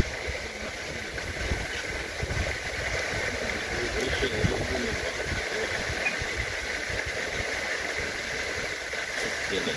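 Steady outdoor background noise: a low, uneven rumble with a continuous high-pitched hiss over it.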